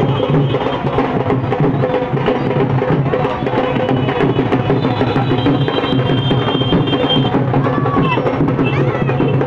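Loud music with drumming.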